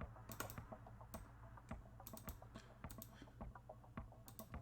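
Faint, irregular clicks of computer keys, several a second, over a low steady hum.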